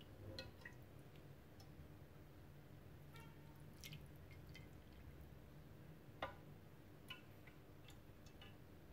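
Near silence with faint, scattered clicks and drips from a metal ladle spooning tomato sauce over meatballs in a ceramic dish. One sharper click comes about six seconds in.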